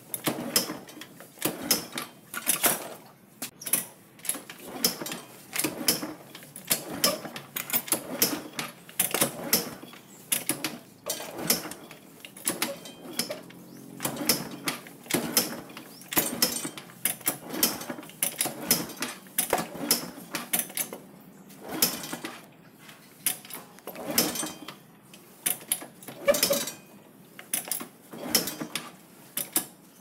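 Motorcycle kick-starter lever being kicked over again and again, each kick a clatter of sharp metal clicks from the kick-start mechanism.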